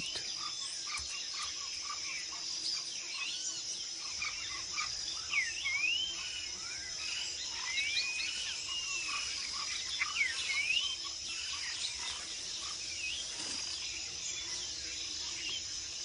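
Jungle ambience: a steady high-pitched insect drone with many short, rising and falling bird chirps scattered over it.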